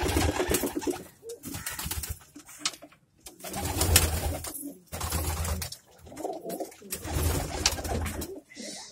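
Domestic pigeons cooing in a loft: several low, rolling coos, each about a second long, in four bouts. A few sharp clicks fall between them.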